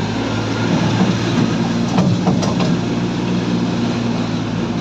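Toy train running with a steady engine hum and rumble, with a few short clicks and knocks about two seconds in.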